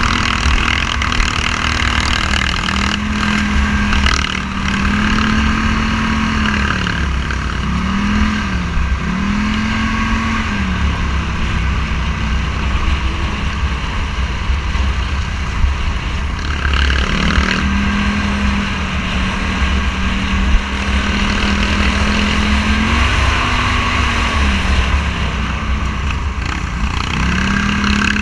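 Scrambler 1000 motorcycle engine running under way. Its pitch rises and falls repeatedly as the throttle is opened and closed, over a steady low rumble.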